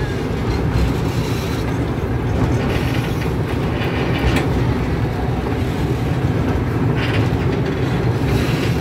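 Small zoo park train rolling along its track, heard from an open car just behind the locomotive. Its wheels make a steady low rumble on the rails, with brief irregular rattles now and then.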